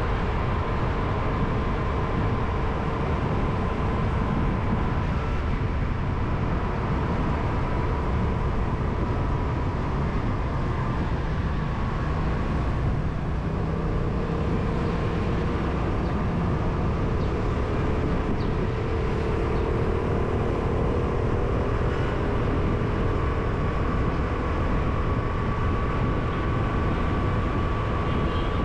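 Steady street traffic and road noise, a continuous rumble with faint whines that shift slightly in pitch now and then.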